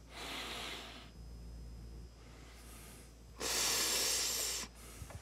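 A person breathing close to the microphone, two breaths: a softer one at the start and a louder one lasting about a second, some three and a half seconds in.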